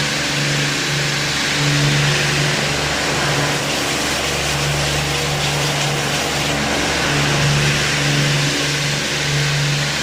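Automatic four-head rinsing machine for 5-gallon water barrels running: a steady hiss of spraying rinse water over a low machine hum that comes and goes every second or two.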